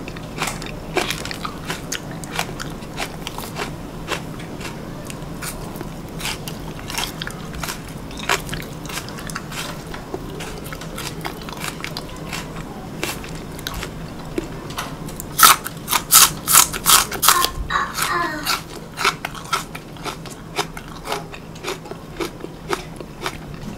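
Biting and chewing of raw Korean green onion (daepa) stalks: crisp crunches and wet clicks, with a run of loud crunchy bites about fifteen seconds in.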